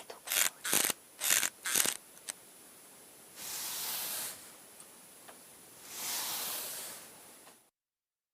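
Foley spray bottle squirted in a quick run of short hissing spurts, followed by two longer hisses of about a second each. These are parts of a sound effect being recorded separately before they are combined.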